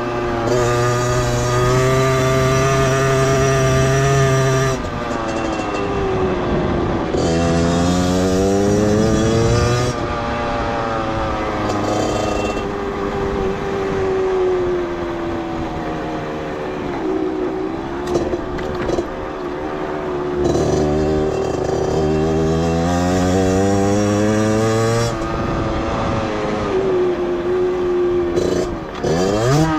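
Beta 50cc two-stroke motorcycle engine running under way. The revs hold steady for the first few seconds, then climb and drop again several times, with a quick sharp rev near the end.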